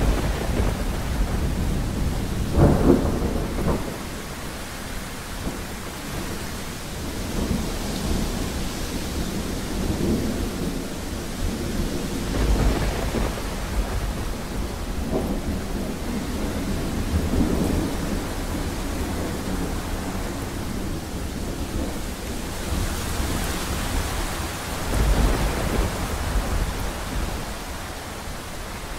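Thunderstorm: a series of low thunder rumbles rolling in every few seconds over steady rain, the loudest about three seconds in and another strong peal near the end.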